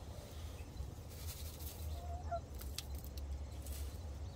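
A hen gives one short, soft call about two seconds in, over a low steady rumble, with a few faint clicks.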